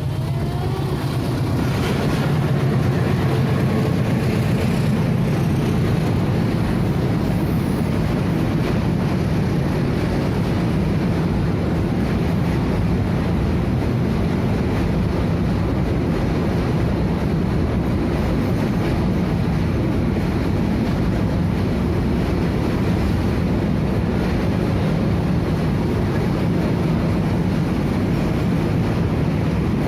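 Freight train of mixed, refrigerated and container wagons rolling past on the rails, a steady dense rolling noise with a low hum, building over the first couple of seconds and then holding level.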